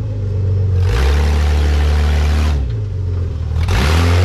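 Off-road buggy's engine revving hard under load as it climbs a steep dirt trench. It is held at high revs with a loud rasp for about a second and a half from about a second in, drops back, then revs up again near the end.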